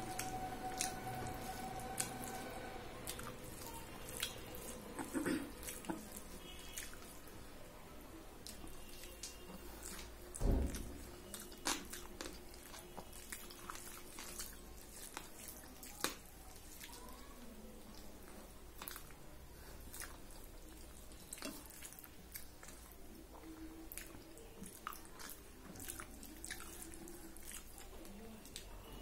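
Eating rice and dal by hand from a steel plate: scattered small wet clicks and squishes of fingers mixing rice, with chewing. A single louder low thump about ten seconds in.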